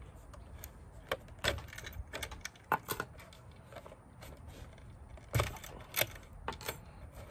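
Irregular light clicks and knocks of small wooden dowel pins being pulled out of a wooden board and handled, the loudest pair a little past the middle.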